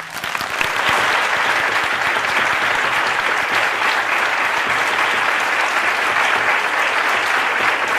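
A large audience applauding, many hands clapping in a dense, even patter that swells over the first second and then holds steady.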